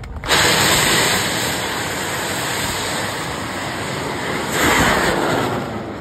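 A Bang Fai Saen, a large black-powder festival rocket, firing off its launch tower: its motor starts with a sudden loud rushing roar, swells once more near the end, then fades as the rocket climbs away.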